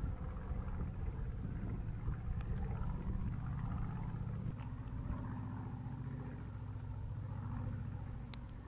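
A low, steady engine-like hum whose pitch shifts about halfway through, with a few faint sharp clicks.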